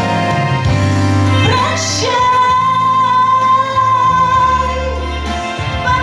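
A woman singing a slow Russian song with instrumental backing. Her voice comes in about a second and a half in and holds one long note for about three seconds over a steady bass.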